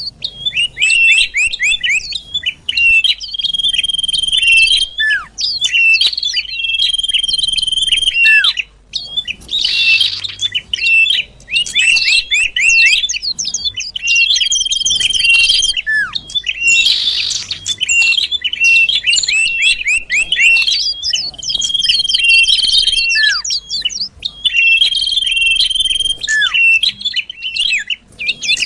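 Cipoh (iora) lure recording: repeated phrases of a long, level, high whistle mixed with rapid twittering chirps and short downslurred notes, continuous and loud.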